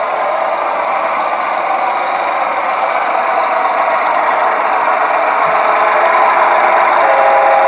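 Sound-equipped model diesel locomotive running, its engine sound playing from the model's small onboard speaker and growing a little louder toward the end, where steady tones come in.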